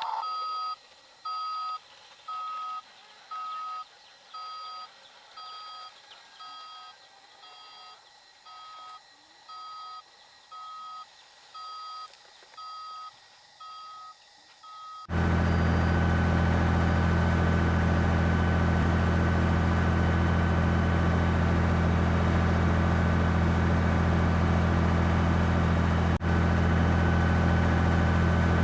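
Reversing beeper of a radio-controlled model truck, beeping steadily about once every three-quarters of a second. About fifteen seconds in, it gives way suddenly to a loud, steady, engine-like hum with a high whine.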